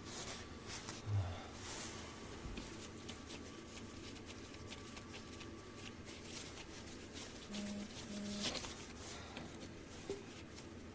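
Faint, irregular clicking and light scraping of hand work under a car: tools and small metal parts being handled.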